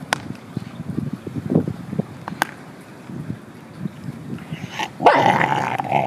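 A stray mother dog gnawing a bone, with irregular chewing noise and a few sharp cracks. About five seconds in she breaks into a loud, rough growl that carries on to the end: a warning to another dog to keep away from her food.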